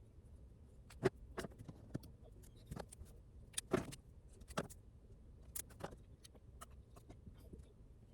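Irregular light clicks and taps, about fifteen scattered sharp ticks over a faint steady low hum, a few of them slightly longer and scratchier.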